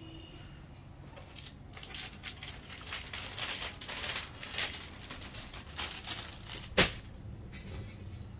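Rustling, crinkling handling noise in close succession, with one sharp knock near the end.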